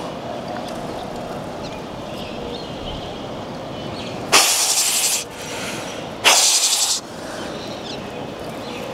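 Steady outdoor background noise, broken by two loud hissing sounds, the first about four seconds in and lasting just under a second, the second about two seconds later and slightly shorter.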